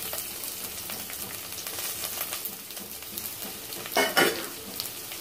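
Chopped onions sizzling and crackling in hot oil with curry leaves in a steel pressure cooker, with one brief louder burst about four seconds in.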